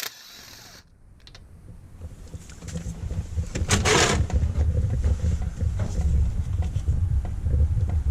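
A motor running with a low, uneven rumble that builds up over the first couple of seconds and then holds steady, with a short hiss about four seconds in.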